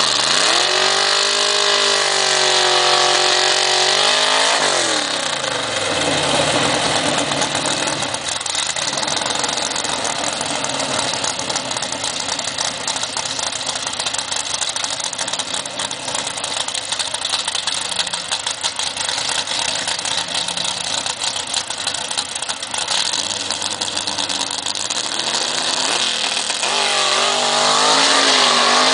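Dodge Dart drag car's stroked small-block V8 revving up and down in throttle blips, then a long burnout: the engine held high with the rear tyres spinning, a dense steady rush of noise for about twenty seconds. Near the end the engine blips up and down again.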